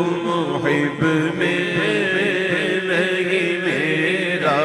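A male voice singing a naat, an Urdu devotional song, without instruments, drawing out a long wavering wordless line over a steady background drone.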